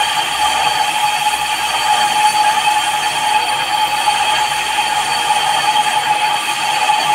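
Metal lathe running while a single-point tool takes a facing cut across a spinning paper-plate die, turning it down to reduce its depth. A steady mechanical whir with a constant high ringing tone from the cut.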